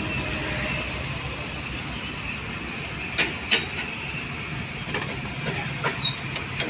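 Steady hiss and low hum of a workshop, with scattered sharp metallic clicks from a hand tool working the terminal nut on a truck starter motor, most of them in the second half.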